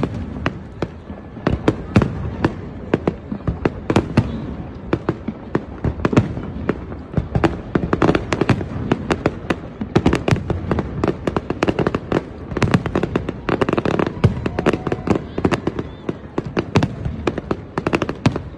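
Fireworks display going off: a dense, continuous barrage of sharp cracks and bangs, several a second, over a steady low rumble of shell bursts.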